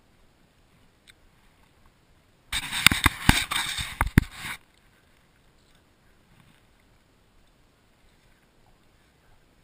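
Close handling noise from an action camera mounted on a kayak being re-aimed: about two seconds of rubbing with several sharp clicks and knocks, starting a couple of seconds in. Faint lapping water and air before and after.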